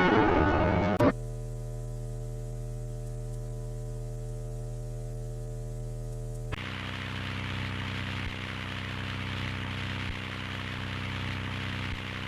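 A louder sound cuts off about a second in, leaving a steady electrical mains hum. A hiss of recording noise joins the hum about six and a half seconds in, typical of an old film soundtrack between clips.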